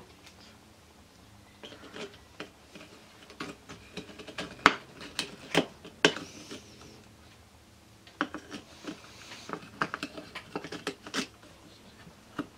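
Needle-nose pliers clicking and scraping against the steel spring and shaft beside the clutch of a Derbi Euro 3 engine while a return spring is pulled into place: irregular sharp metal clicks, a cluster about four to six seconds in and another from about eight to eleven seconds in.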